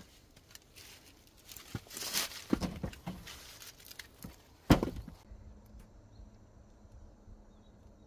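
Split firewood being stacked on a woodpile: logs knocking and scraping against each other, with one sharp wooden clunk a little under five seconds in. After that only a faint steady hum is left.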